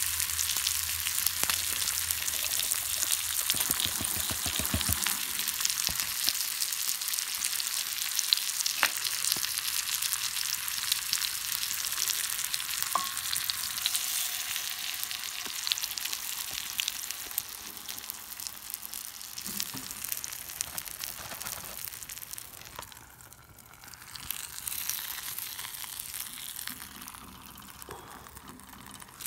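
Food sizzling and crackling as it fries in a cast-iron skillet over a campfire. The sizzle grows quieter in the last third.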